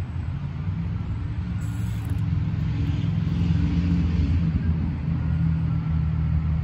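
Micro RC crawler's small electric motor and gears running steadily with a low hum as the truck crawls up a steep tree root, straining under load.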